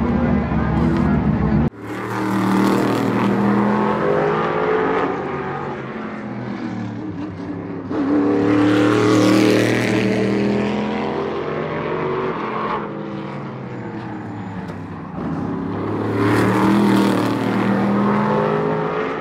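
Modified race car engine. It holds steady for the first couple of seconds, then after a sudden cut it comes and goes as the car laps the track, rising and falling in pitch and swelling loudest three times as it passes.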